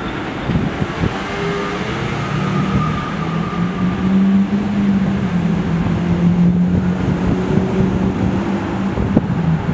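R179 subway train running away along elevated track, heard together with a steady low engine hum of road traffic that grows louder in the middle.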